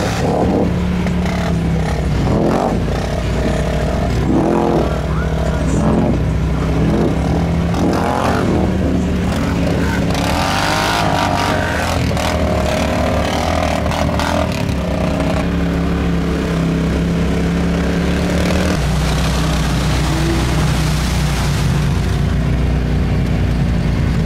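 ATV and side-by-side engines revving hard as they power through mud, water and sand, the pitch climbing and falling again and again.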